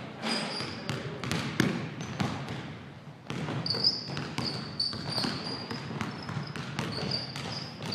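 Basketball dribbled and bouncing on a hardwood gym floor, a run of irregular sharp bounces. From about halfway through, sneakers squeak repeatedly on the floor over the bouncing.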